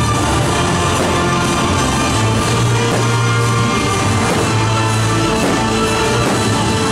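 Loud music with sustained bass notes.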